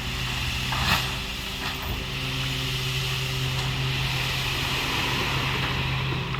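An engine running steadily, with a short knock about a second in.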